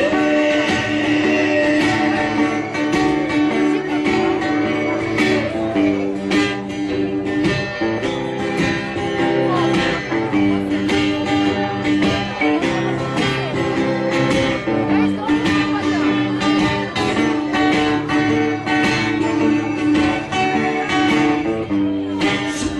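Instrumental passage of a song: acoustic guitar strummed and picked, with no singing.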